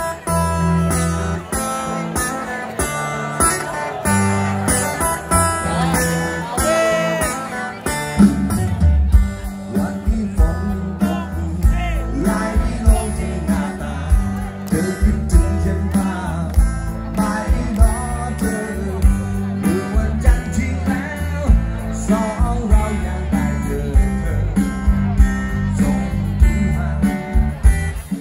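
Live rock band playing a song: strummed acoustic guitar, drum kit and bass guitar, with a lead vocal. The full band gets louder about eight to nine seconds in.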